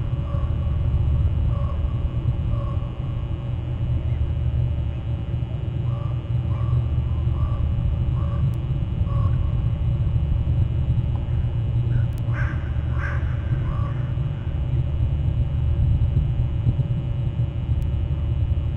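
Crows cawing in short repeated runs at a distance, with two louder caws past the middle, over a steady low rumble.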